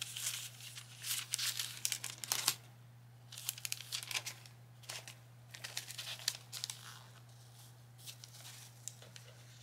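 Paper wrapping rustling and crinkling as it is folded back by hand, in several irregular bursts with short pauses, busiest in the first couple of seconds and fading to light touches near the end.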